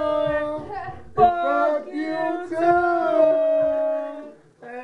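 Human voice singing in long, drawn-out howling notes: several held notes with short breaks, the last and longest lasting about a second and a half before fading out near the end.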